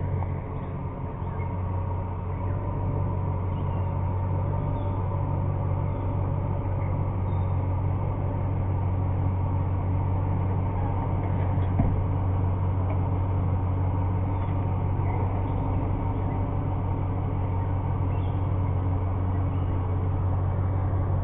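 Pickup truck engine running steadily at low revs, a low hum, as it reverses a boat trailer down a launch ramp. A single short knock about twelve seconds in.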